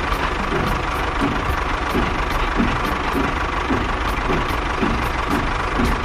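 Toy train running along plastic track: a steady mechanical rumble with a regular knock about two to three times a second.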